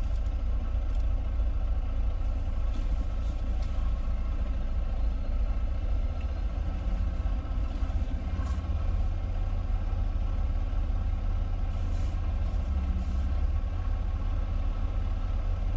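Semi truck's diesel engine running steadily, a constant low drone with an even, unchanging tone.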